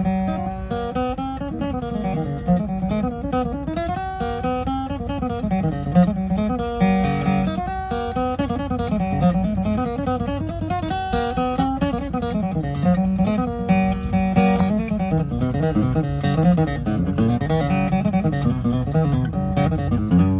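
An antiqued Gibson J-35 round-shoulder acoustic guitar being played, a bass line climbing and falling under a picked melody.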